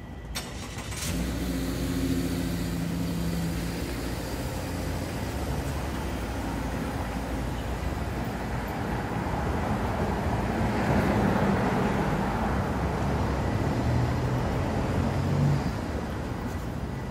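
Street traffic: motor vehicles running and passing along the road, a steady rush that swells toward the middle with a low engine hum underneath.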